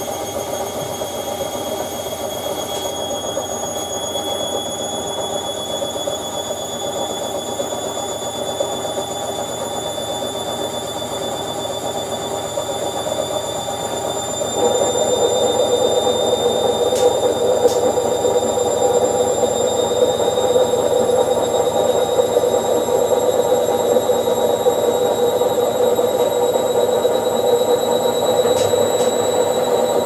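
Indesit front-loading washing machine running, with a high motor whine that rises slowly in pitch over a steady hum. The hum steps up noticeably louder about halfway through.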